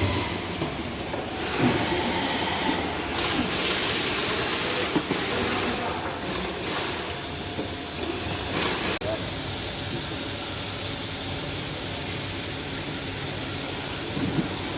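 Hissing spray, swelling in several bursts, then after a sudden break about nine seconds in, a steadier hiss.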